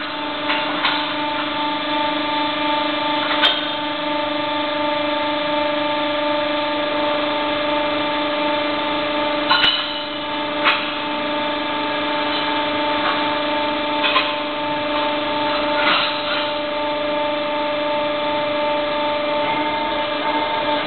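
Electric motor running steadily with a constant hum, with a handful of sharp knocks scattered through it.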